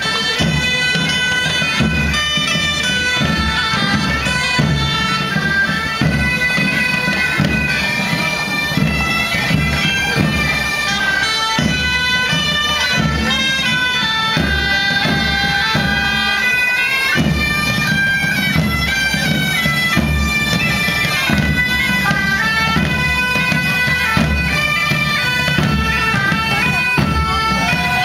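Bagpipes playing a folk march tune in the open air, with large marching drums beating underneath.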